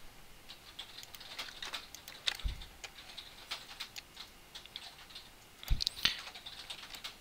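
Computer keyboard keys and mouse buttons clicking irregularly, with a few louder knocks about two and a half seconds in and again near six seconds.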